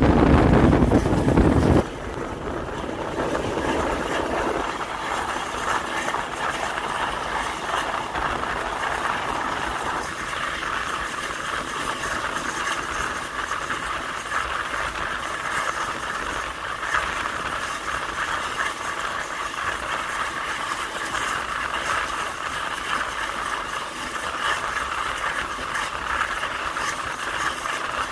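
Wind buffeting the microphone for about the first two seconds, then the steady running noise of a passenger train heard from on board: wheels on the rails and the coach rattling.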